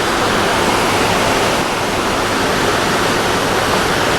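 River rushing loudly and steadily, swollen with snowmelt.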